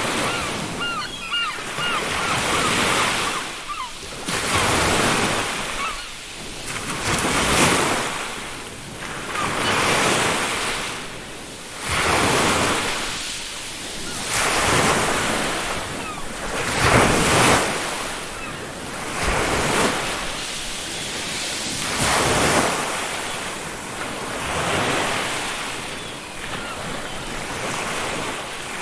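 Ocean waves breaking and washing up on a beach, surging again about every two to three seconds, with wind on the microphone. A few faint seagull calls in the first couple of seconds.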